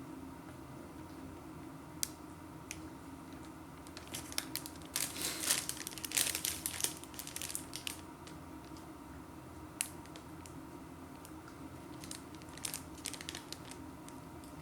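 Food packaging being handled: crackly crinkling and rustling, heaviest a few seconds in and again near the end, with scattered single clicks.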